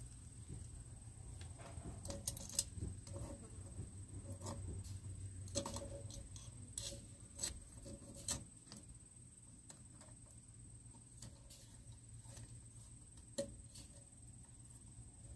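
Faint, scattered clicks and taps of metal parts being handled as a clamp-on chain sharpening guide is fitted and adjusted on a pole saw's bar and chain. The clicks come more often in the first half.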